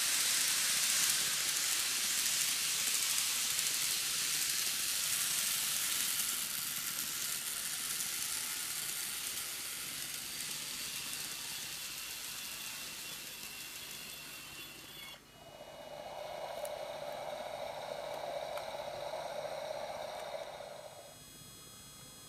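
An N gauge model of a JR East E231-1000 electric train running on its track, with a steady hiss of wheels and motor that slowly fades. About fifteen seconds in, the sound changes to a steadier mid-pitched hum with thin steady whines over it, which drops away near the end.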